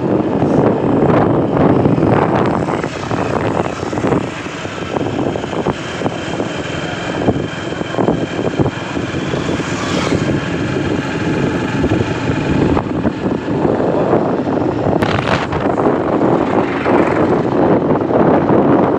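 Passenger train running: a loud, steady rumble of wheels on the track, heard from inside a coach.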